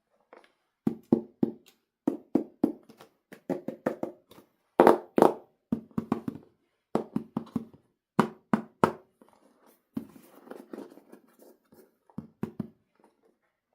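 A run of sharp knocks and taps as hands handle plastic toy pieces, many in quick clusters, with a short rustle about ten seconds in.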